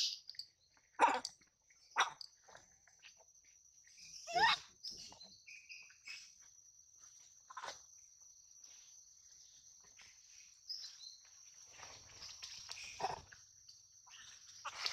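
Young macaque giving short, sharp cries, about five of them spaced a second to several seconds apart, over a faint steady high-pitched hum.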